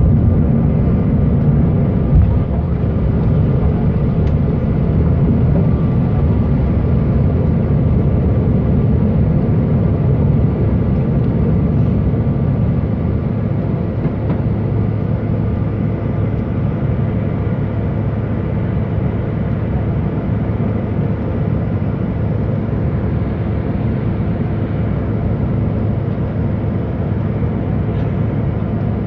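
Cabin noise of a CRJ1000 regional jet at takeoff power: a steady roar from its two rear-mounted General Electric CF34 turbofans, with a single knock about two seconds in during the runway roll. The roar eases a little once the jet is airborne and climbing.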